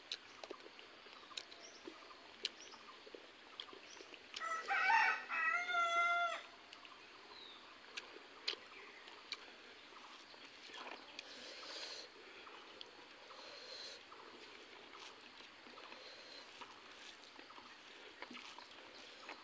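A rooster crows once, about four seconds in, a call of about two seconds. Faint scattered clicks and soft smacks of hand-eating are heard around it.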